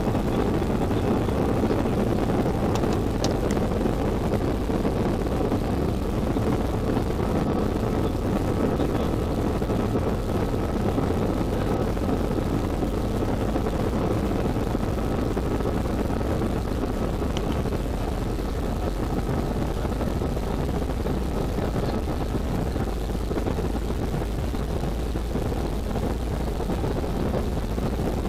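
Cabin noise of an Airbus A320-family airliner on its takeoff roll: the jet engines running at takeoff power as a steady, loud rush, with a faint steady whine above it.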